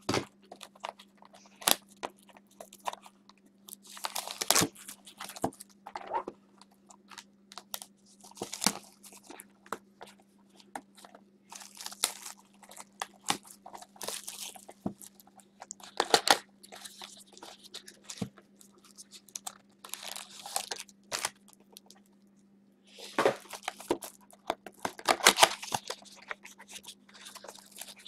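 Shrink-wrapped Topps Finest trading-card boxes being unwrapped and opened by hand: plastic wrap crinkling, cardboard tearing and boxes clicking and tapping as they are handled, in irregular bursts. The busiest stretch comes about two thirds of the way through. A faint steady low hum sits underneath.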